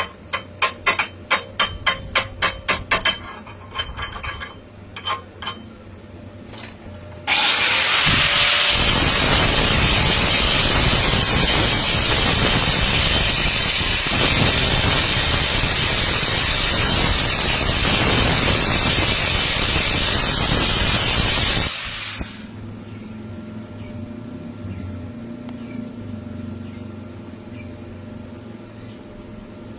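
Metal struck sharply about ten times in quick succession, then a loud, steady hiss of an electric welding arc that starts abruptly about seven seconds in and cuts off about fifteen seconds later.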